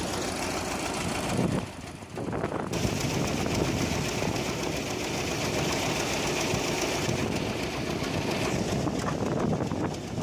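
An engine running steadily, with a brief dip in the sound about two seconds in.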